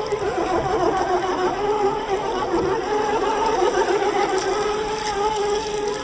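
Electric motors and geared drivetrains of scale RC crawler trucks whining steadily as they wade through a shallow river, the whine wavering slightly in pitch, over water splashing around the wheels.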